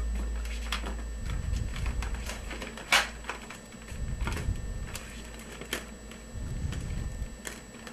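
Inflated latex modelling balloons squeaking and rubbing as hands bend and twist them into shape, in a string of short squeaks, the loudest about three seconds in.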